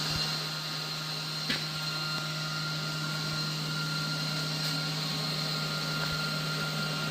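Aluminum welding: a welder running with a steady hum and hiss. A single sharp click comes about a second and a half in.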